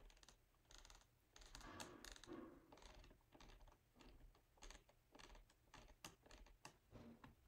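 Near silence, with faint, irregular clicking of computer keys and controls, a few clicks a second.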